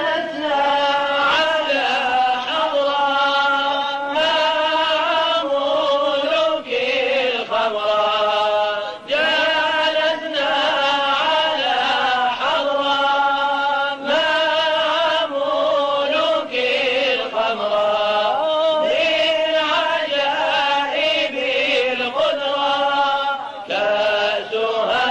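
Unaccompanied male voice chanting a devotional Arabic poem, in long held, gliding and slightly wavering notes with few distinct words.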